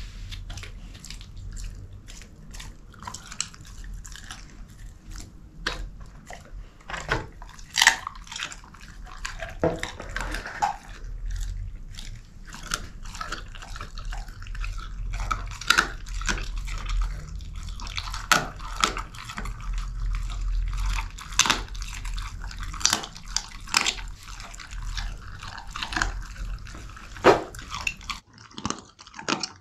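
Belgian Shepherd Groenendael chewing a chicken drumstick, the bone crunching in a dense, irregular run of sharp cracks. The chewing stops near the end.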